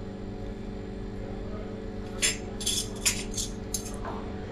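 Cutlery and crockery clinking, with a quick run of five or six short clinks and scrapes about halfway through, over a steady low hum.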